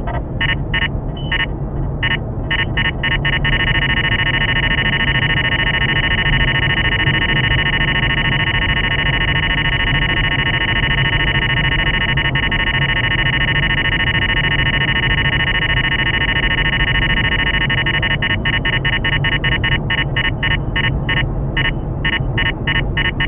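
Radar detector alert: fast electronic beeping that runs together into a solid tone a few seconds in, holds for about fifteen seconds, then breaks back into rapid beeps near the end. The solid tone means the detector is reading a strong police radar signal. Steady road and tyre noise of a car at highway speed underneath.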